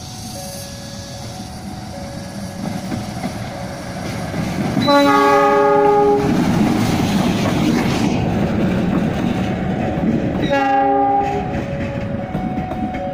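KAI CC 206 diesel-electric locomotive passing close while hauling coaches. It sounds its several-note horn twice: a longer blast about five seconds in and a shorter one about ten and a half seconds in. Engine and wheel noise on the rails swell in between. A faint two-tone signal alternates steadily in the background.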